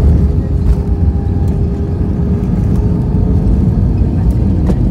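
Airbus A320 touching down, heard from the cabin: a sudden jump into a heavy, steady rumble of the wheels rolling on the runway as the ground spoilers deploy, with a few brief rattles.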